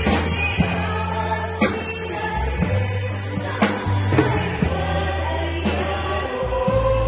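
A choir singing a gospel worship song over a band, with steady bass notes and regular drum beats.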